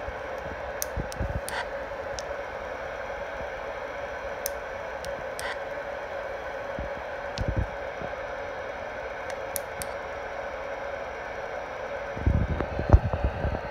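Steady static hiss from a CB radio's speaker, with scattered small clicks as its front-panel buttons are pressed. A few low bumps from the radio being handled on the desk, the loudest cluster near the end.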